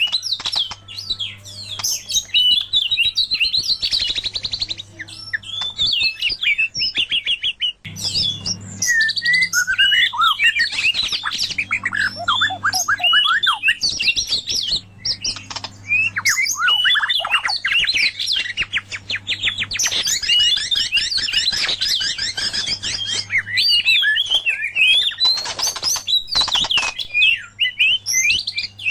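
White-rumped shama and oriental magpie-robin singing without pause: a dense run of loud whistles, trills and rapid chirps. A steady low hum lies underneath.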